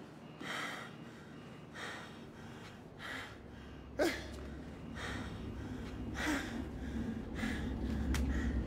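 A man panting hard, short ragged gasping breaths about once a second. A sharp sound stands out about four seconds in, and a low rumble builds underneath from about three seconds in.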